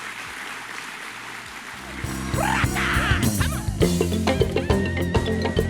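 Applause, then about two seconds in loud celebratory music with a drum kit and heavy bass starts up.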